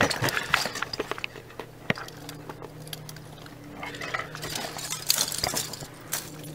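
Handling noise: scattered light clicks and clinks, as hard plastic test pieces and the camera are moved in the hand. A faint steady low hum starts about two seconds in.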